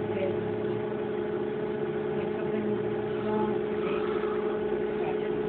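MakerBot Thing-O-Matic 3D printer running as it prints, a steady motor hum with a constant pitched whine.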